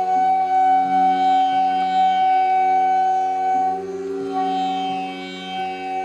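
Instrumental background music: a long held melodic note over a steady drone, the note briefly dipping and changing about four seconds in.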